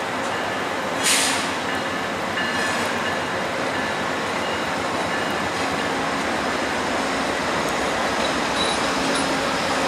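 VIA Rail P42 diesel locomotive, a GE P42DC with a 16-cylinder diesel, running steadily as it pulls a passenger train out of the station. There is a short sharp hiss about a second in, and faint high squeals from the wheels in the second half.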